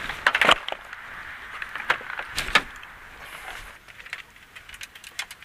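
Clicks and knocks of a pickup truck's rear door being opened, then the rattle and tapping of fishing rods and reels being shifted about inside the cab. The sharpest knocks come in the first half-second and again about two and a half seconds in, and the handling turns to lighter ticks in the last second or two.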